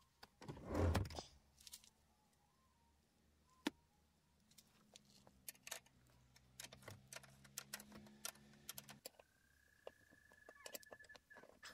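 Quick, irregular metal clicks and clinks of a box-end wrench working the bolt on a car seat's floor rail, after a brief rustling thump about a second in. A faint steady high tone sounds over the last couple of seconds.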